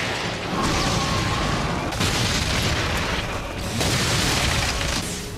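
Anime sound effects of the giant Nine-Tails fox rampaging through a village: a dense roar of booms and crashing destruction over a heavy rumble, swelling afresh a few times.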